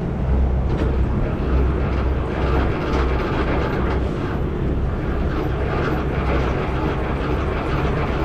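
Semi truck's diesel engine idling steadily close by, while the trailer's landing gear is wound down by its hand crank.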